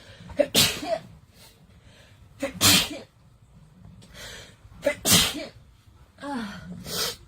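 A woman sneezing three times, about two seconds apart, each a short voiced intake followed by a loud, explosive burst, set off by the nasal swab. A softer breathy, voiced sound comes near the end.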